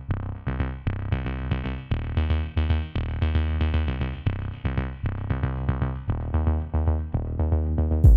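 Electronic background music with a drum-machine beat and synthesizer notes.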